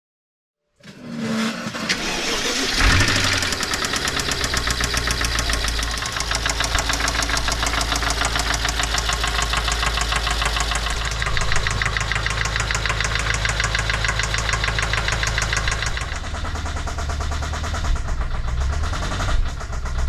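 BMW S63 twin-turbo V8 starting up about three seconds in and then running at idle with a rapid, steady knock from the bottom end: the sign of a failed connecting-rod bearing.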